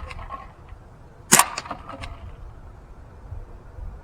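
Umarex UX 357 CO2 BB revolver firing once, about a second and a half in: a sharp pop followed by a few fainter ticks.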